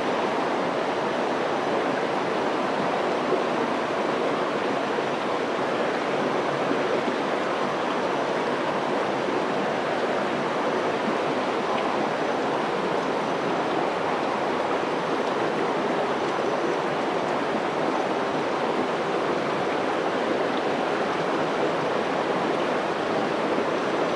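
A small mountain stream rushing and splashing over rocks in a small cascade, a steady, unbroken sound of running water.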